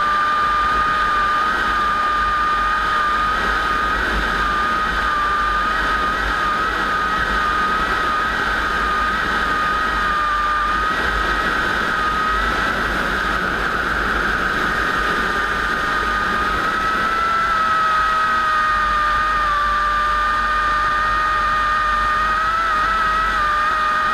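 Piston-engined propeller warbird droning steadily. The pitch wavers slightly but never sweeps up or down, so the aircraft is holding at a distance rather than passing close by.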